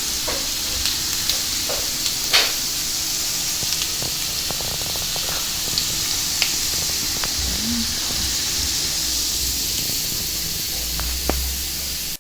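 Food frying in a pan: a steady sizzling hiss with scattered sharp pops of spitting oil, one louder pop about two seconds in.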